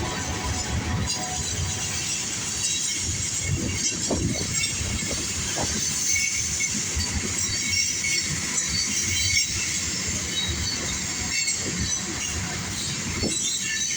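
Norfolk Southern mixed freight train's cars rolling past: a steady rumble of wheels on rail, with scattered clanks.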